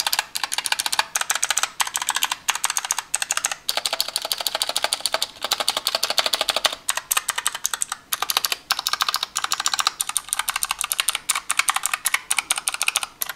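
Razer Huntsman Mini keyboard's Razer Purple clicky optical switches being typed on rapidly: a fast, continuous clatter of sharp clicks, broken by a few brief pauses.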